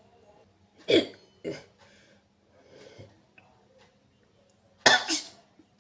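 A woman sneezing, her nose irritated by pepper powder: a loud sudden burst about a second in and another near the end, with smaller ones between.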